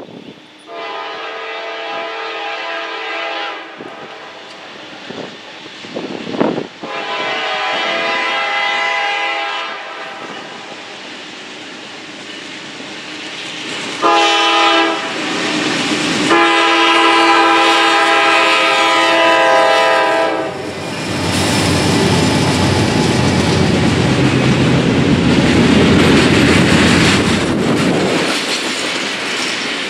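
A locomotive horn blows four blasts as the train approaches the crossing, the last held until about 20 seconds in. Then the lead pair of GE Dash 9 diesel locomotives and the double-stack intermodal cars rumble and clatter through the crossing.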